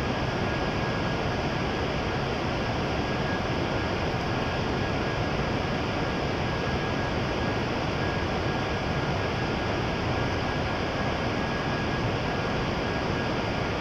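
Steady ambient noise of a shinkansen station platform: an even rumble and hiss with a faint high steady tone, no train passing.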